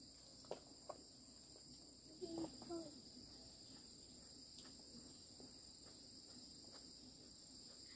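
Faint, steady high-pitched drone of insects, two unbroken tones. There are a couple of light clicks near the start and a brief voice about two and a half seconds in.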